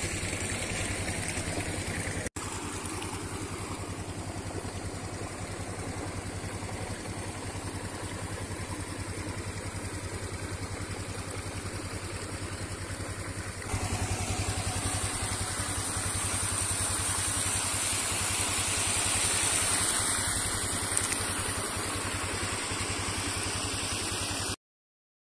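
Suzuki Skydrive 125 scooter's single-cylinder four-stroke engine idling steadily with an even low pulse. The sound steps up a little louder about halfway through and cuts off abruptly near the end.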